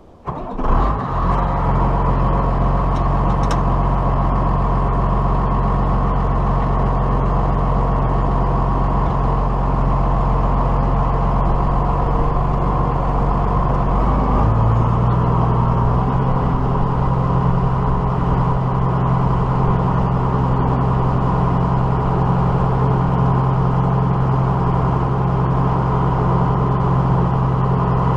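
Diesel tractor engine running steadily, coming in suddenly just after the start; about halfway through its note shifts as the engine speed changes.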